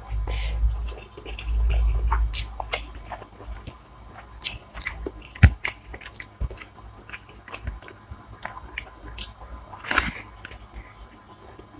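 Close-miked eating of hilsa fish biryani and fried hilsa: biting and chewing with irregular wet mouth clicks and smacks, and low thumps in the first two seconds.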